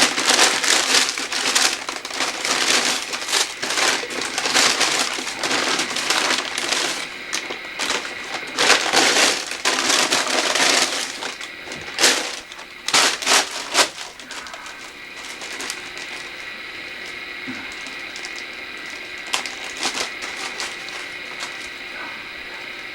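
Paper take-out wrapping crinkling and rustling as it is handled, dense and continuous for about eleven seconds, then a few short crackles, then only small occasional rustles.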